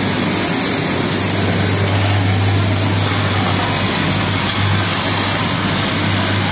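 Electric straight-knife cloth cutting machine running, a steady low motor hum with an even mechanical noise over it.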